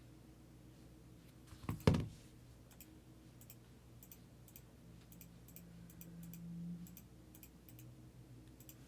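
A single knock about two seconds in, then a run of faint, light clicks, irregular at about one or two a second.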